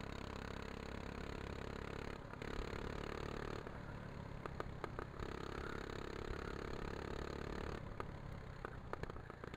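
Go-kart engine running, heard from onboard, its note shifting several times through the lap as the kart goes through corners. A few sharp clicks come in the middle and near the end.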